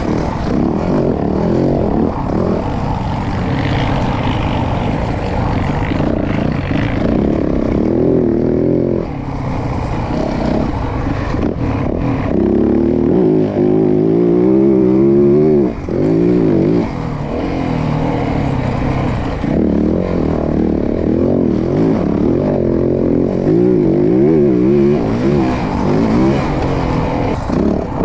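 Yamaha WR450F single-cylinder four-stroke engine under way, revving up and down over and over as it is ridden. The throttle is briefly closed twice, about nine seconds in and again around sixteen seconds.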